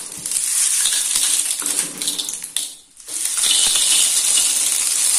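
Tengkuyung snail shells clattering in a pan of sizzling spice paste as they are tipped in and stirred, in two long stretches with a short break about three seconds in.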